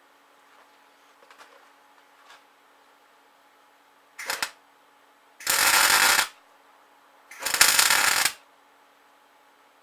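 Welding arc crackling in three short bursts, a brief one followed by two of just under a second each, as beads are run on a cast-iron part.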